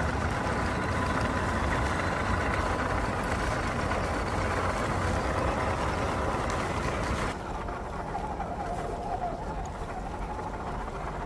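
Small RC crawler truck driving over dirt: its electric motor and gearbox whining steadily, with tyre and ground noise. The sound drops and changes abruptly about seven seconds in, after which a fainter whine wavers in pitch.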